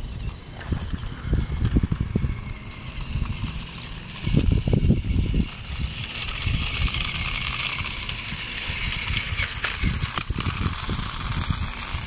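Battery-powered Trackmaster Thomas toy train running along plastic track, its motor and wheels making a steady whirring hiss from about five seconds in until near the end as it passes close by. Gusty wind rumbles on the microphone throughout, loudest about four seconds in.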